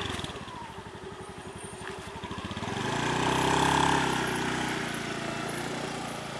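Small motor scooter engine ticking over with a fast, even pulse, then revving up as it pulls away about three seconds in. It is loudest around four seconds and fades as it rides off.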